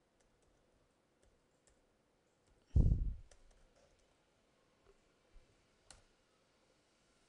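Scattered, faint clicks of computer keyboard keys being typed. A single loud, deep thump comes a little under three seconds in and dies away over about half a second.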